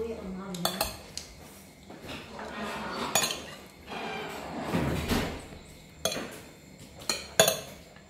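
Metal spoons and forks clinking and scraping against ceramic plates while food is served and eaten, with a scattering of sharp clinks, the loudest near the end.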